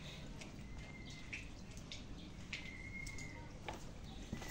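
A bird calling twice: each call a sharp note followed by a short steady whistle, over faint outdoor background noise with a few light clicks.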